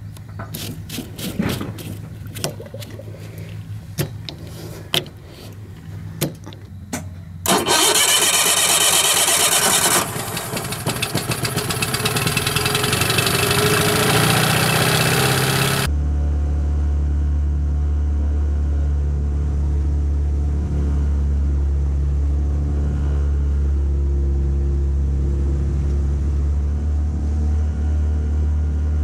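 A run of sharp clicks and knocks, then a Yamaha outboard motor starts suddenly about seven seconds in and runs loudly close by, rising a little. About halfway through it changes to a steady low drone as the outboard motors on.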